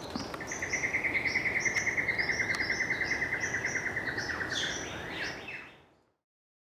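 Birdsong from several birds: one gives a long, rapid, pulsing trill while others add short rising chirps above it. The song fades out about five and a half seconds in.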